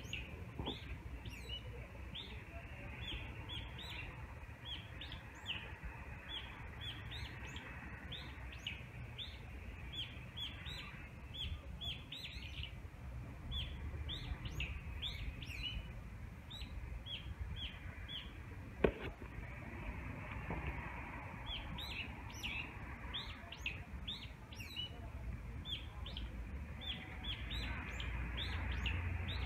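Small birds chirping over and over, short high chirps coming several a second with brief pauses, over a low steady rumble. One sharp click about two-thirds of the way through is the loudest moment.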